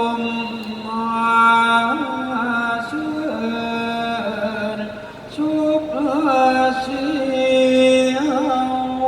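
A single voice chanting Thai royal barge verse (kap he ruea) in long held notes, with wavering turns between the notes.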